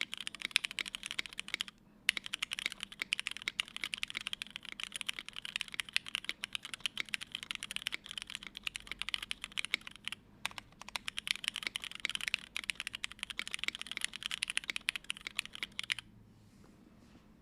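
Moontower v1 mechanical keyboard with lubed Cherry Hyperglide Black linear switches, an aluminium plate and CRP keycaps, typed on quickly and continuously, with two short pauses. The typing stops about a second and a half before the end.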